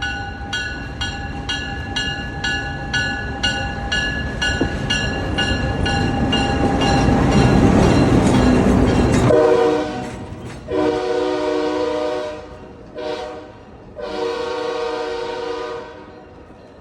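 Diesel passenger locomotive approaching and passing close by, its bell clanging steadily at about two and a half strokes a second while the engine and wheel noise grows louder. About nine seconds in the bell stops and the air horn sounds four blasts, long, long, short, long: the standard grade-crossing signal.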